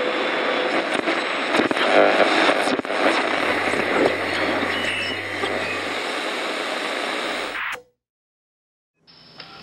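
Steady city ambience like distant traffic, with a few faint clicks, cutting off suddenly about eight seconds in.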